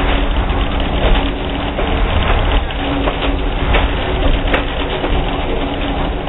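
Steady rumble and rattle of a railroad passenger car rolling along the track, heard from on board, with scattered clicks from the wheels and running gear.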